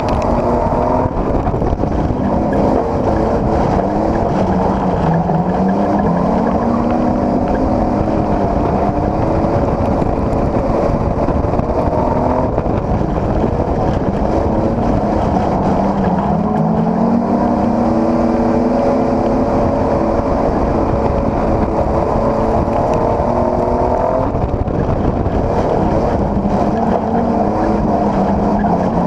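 Dirt-track race car engine heard from inside the cockpit, loud throughout. Its pitch sinks and then climbs back up in a repeating cycle of roughly ten seconds, backing off for the corners and accelerating out onto the straights, with wind and road noise underneath.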